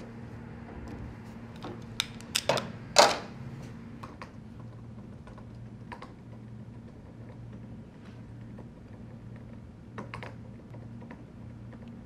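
Typing on a MacBook laptop keyboard: irregular key clicks, with a flurry of harder, louder strokes about two to three seconds in, over a steady low hum.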